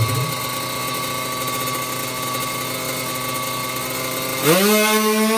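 Drag-racing motorcycle engine in the FFA 350cc class idling steadily, then revved sharply about four and a half seconds in and held at a steady high rev.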